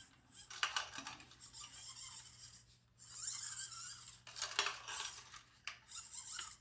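Plastic robot parts clicking, rattling and scraping as the Reachy Mini's body is turned by hand on its base, with a longer stretch of rubbing about three seconds in. The rotation is catching on an obstruction, the routed wiring.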